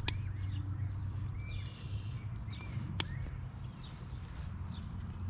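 Fishing pliers clicking twice, about three seconds apart, while working a deep-set hook out of a bass's throat, over a steady low rumble and faint chirping.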